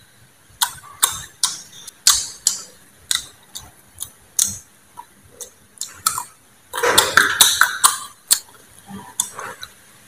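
Close-up eating sounds: wet, smacking chewing of sausage, heard as sharp irregular clicks one or two a second. About seven seconds in, a denser, louder stretch of crunching comes as a slice of green mango is bitten and chewed.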